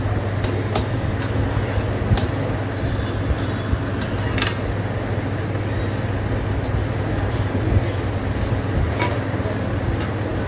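Steel ladle stirring and scraping thick rava kichadi in a steel kadai, with scattered short taps against the pan, over a steady low hum. Near the end a steel plate is set over the kadai as a lid.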